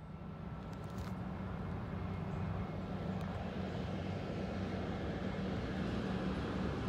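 A red-and-white diesel commuter railcar approaching along an elevated track, its engine and running gear a steady low drone growing louder as it draws nearer.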